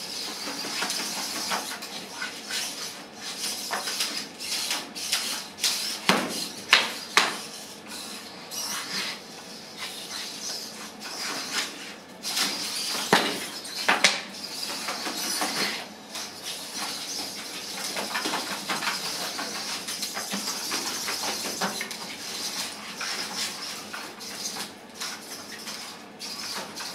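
Small humanoid wrestling robots' servo motors whirring, with their metal limbs and feet clattering and knocking against each other and the ring floor. Sharp knocks throughout are loudest about a quarter of the way in and again about halfway, around where one robot is knocked flat.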